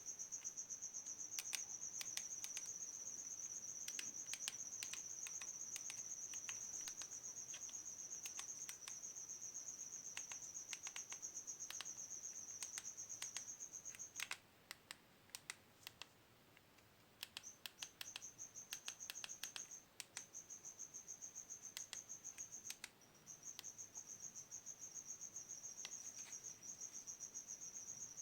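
A cricket chirping in a steady high trill, which stops for a few seconds about halfway and briefly twice more. Scattered sharp clicks and taps come through over it, some in quick runs.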